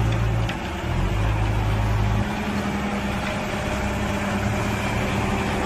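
Diesel engine of an Ajax Fiori self-loading concrete mixer running steadily. Its heavy low note dips briefly about half a second in, then drops to a lighter, even hum about two seconds in.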